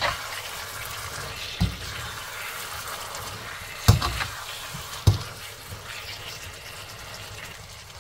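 Lamb and onions in a thick tomato sauce sizzling and bubbling in a wok, with a metal slotted skimmer knocking against the pan three times as it is stirred.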